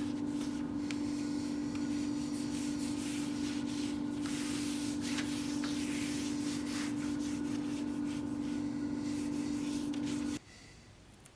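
Power sander running with a steady motor hum while it sands, the abrasive rubbing and scraping unevenly against the workpiece; everything stops abruptly near the end.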